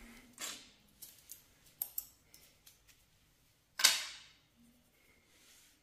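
Shards of a broken ceramic plate being gathered up from a tile floor: a few light clicks, then one sharp clink about four seconds in that rings briefly.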